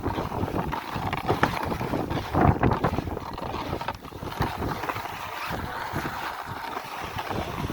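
Wind buffeting the microphone: an irregular, gusting rumble with a rough noisy hiss over it.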